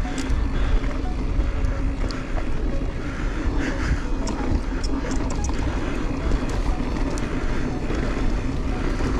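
Mountain bike ridden on a dirt trail, heard through a helmet- or bike-mounted action camera: a steady rush of wind buffeting the microphone, with scattered sharp clicks and rattles from the bike.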